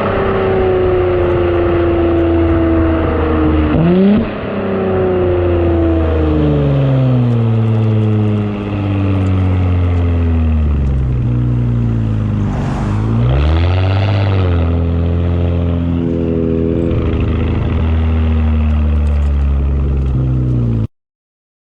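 Audi S5 B9's turbocharged 3.0-litre V6 through an AWE Track Edition exhaust and Luft-Technik intake, driving on the road. Its note sinks steadily, jumps up in a quick rev blip about four seconds in, and dips and climbs again around thirteen seconds with a rush of hiss before settling into a steady drone. It cuts off suddenly just before the end.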